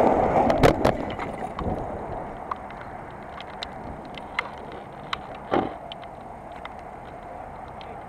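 Aftermath of a motorcycle hitting a car on a wet road. The downed bike and its camera give a sharp knock about a second in, and the scraping noise dies away over the next second or two. After that comes a steady low background with scattered clicks and a dull thump about five and a half seconds in.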